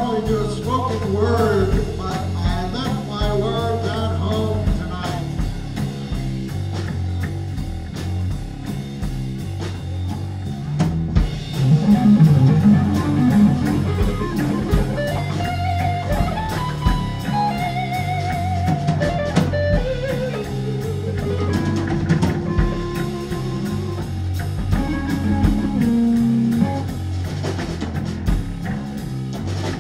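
Live band music: guitar over a drum kit, getting louder about twelve seconds in.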